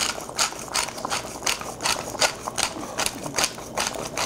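Hand pepper grinder being twisted, cracking black pepper in a steady rhythm of gritty grinding clicks, about three strokes a second.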